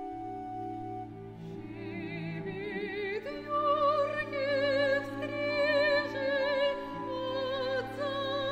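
Classical soprano singing with a wide vibrato over sustained chords from a chamber orchestra. A deep held note comes in at the start, the voice enters about a second and a half in, and it climbs to a held high note about three seconds in.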